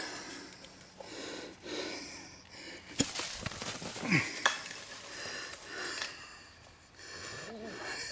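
Cattle dogs panting and sniffing as they play and wrestle, with scuffling in dry leaf litter and a couple of sharp knocks about three and four and a half seconds in.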